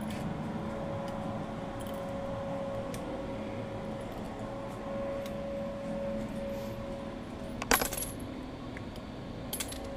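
Light metallic clinks from handling a revolver and its cartridges, over a faint steady hum. A short cluster of clinks comes about three-quarters of the way through, and a couple more near the end.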